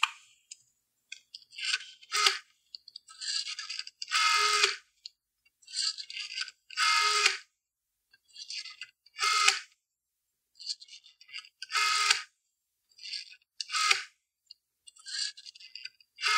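A rotary telephone being dialled, about seven numbers in turn. Each time, the dial whirs quietly as it is wound round, then buzzes back louder to its stop.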